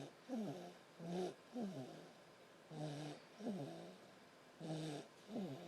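A baby snoring in a steady rhythm, four breaths. Each breath is a short steady hum followed by a falling whine, about one every one and a half to two seconds.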